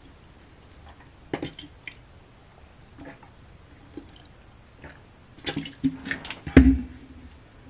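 A person drinking from a plastic water bottle: quiet gulps and swallows with scattered clicks and crinkles of the bottle. Near the end a short run of louder handling noises ends in a dull thump.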